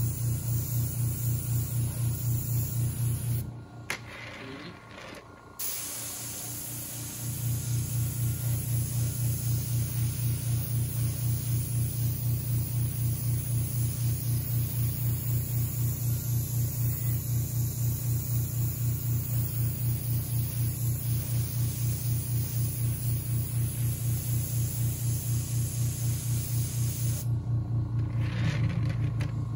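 Airbrush spraying, a steady hiss of air, over the rapidly pulsing hum of its compressor. The spraying stops twice, a few seconds in and near the end, and the compressor hum drops out for a few seconds about four seconds in.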